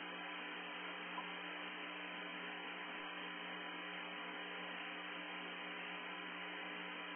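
Steady static hiss with a constant electrical hum, cut off above the upper mid-range as on a narrow audio channel; a single faint tick about a second in.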